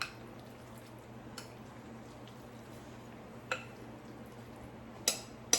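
Spoon scraping thick chicken pot pie filling out of a bowl into a baking dish: a few soft clicks, then two sharp clinks of the spoon on the dish near the end, over a low steady hum.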